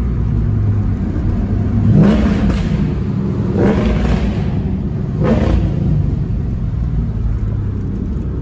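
Supercharged two-valve 4.6 V8 of a Saleen Mustang, breathing through long-tube headers, an X-pipe and Pypes M80 mufflers, pulling under way as heard from inside the cabin. A steady low exhaust drone with three short surges in the note, each about a second and a half apart.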